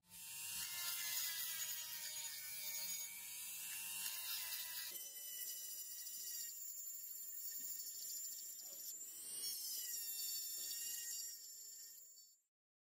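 Hand-held rotary tool with a sanding drum grinding rust off a small metal sword-guard piece: a high motor whine over gritty abrasion. It starts suddenly, changes tone about five seconds in, and cuts off just before the end.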